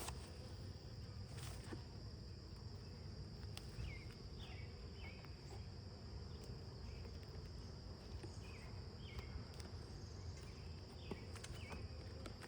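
Honeybees buzzing around an opened hive in a low steady hum, under a steady high-pitched insect trill. A few short chirps and faint clicks come through now and then.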